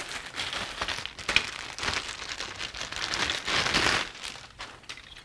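Clear plastic kit parts bag crinkling irregularly as hands open it and pull out black plastic parts trees.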